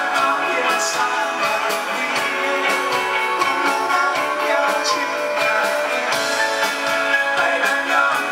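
A rock band playing live, with guitars to the fore.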